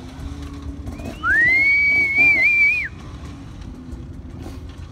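A person whistling loudly: one long whistle starting about a second in, rising at the start, held with small wobbles for about a second and a half, then dropping off. A dirt bike engine runs faintly underneath.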